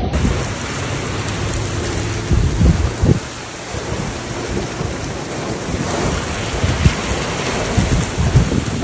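Strong storm wind and heavy rain near a tornado: a dense, steady rush with gusts buffeting the phone's microphone in low rumbles several times.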